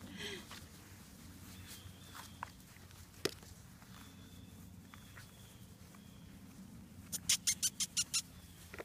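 Labrador puppies playing on grass among blankets and leather gloves. A brief puppy whine comes at the start, then a few scattered clicks, and near the end a quick run of about ten scratchy taps.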